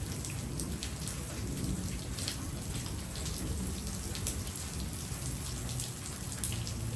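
Heavy rain pouring steadily during a thunderstorm, drops ticking and pattering on hard surfaces, over a steady low rumble.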